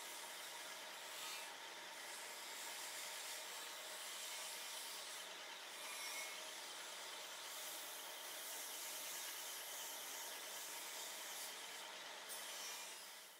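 Steel surgical scissor blades ground against a spinning bench grinding wheel: a steady rasping hiss that swells and eases several times.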